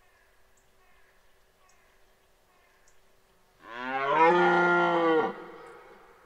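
Red deer stag roaring in the rut: one long bellow of about a second and a half that rises in pitch at the start, then holds and cuts off sharply.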